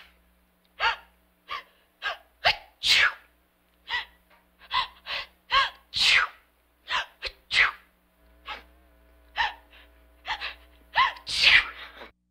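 A woman sneezing over and over, a rapid string of separate sneezes with sharp catches of breath, about one every half second to second. The sneezes stop near the end.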